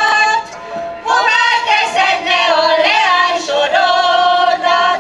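Women's choir singing, with a short break between phrases about half a second in before the voices come in again about a second in.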